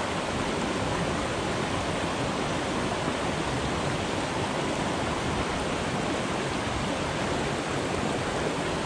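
Small rocky mountain brook running over boulders and cobbles, with water pouring through a riffle close by: a steady, even rush of water.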